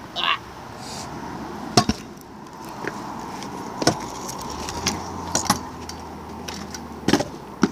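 Kick scooter rolling on concrete, with several sharp metallic clacks and knocks as its deck and wheels hit the ground during a trick attempt.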